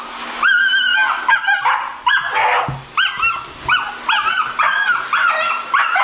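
German Shepherd puppy crying out in distress, a rapid string of high-pitched yelps and whines about two a second, as it panics at a high-velocity pet dryer. The dryer blows steadily underneath, and there is a single dull knock near the middle.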